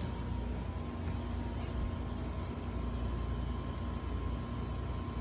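Steady low background hum with a faint, even high whine, and no distinct knocks or calls.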